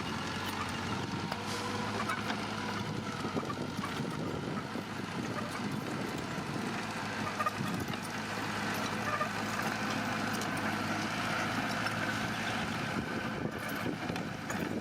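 Heavy diesel construction machine running steadily, a low engine hum with noise and faint metallic squeaks over it.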